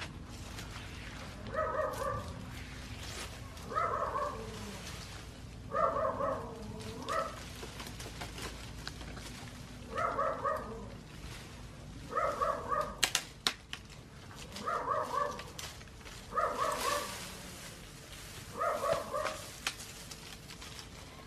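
An animal calling again and again, about every two seconds, each call a short stuttering cry of under a second. A few sharp clicks come around the middle.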